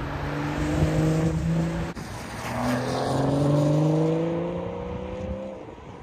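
BMW M240i's B58 turbocharged inline-six exhaust, with both resonators removed, as the car drives past. The first pass holds a steady note for about two seconds and breaks off suddenly. A second pass follows, accelerating with a rising pitch, loudest near the middle and fading away near the end.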